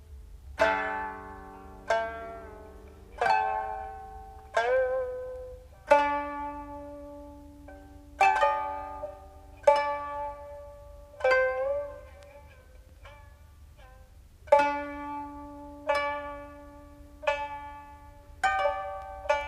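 Instrumental passage of jiuta on koto and shamisen, with no singing: slow, separate plucked notes about every second or so, each ringing out, several bending in pitch just after the pluck.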